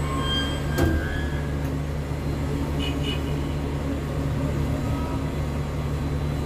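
Steady low machinery hum of a tower crane heard in the operator's cab, with one sharp click about a second in.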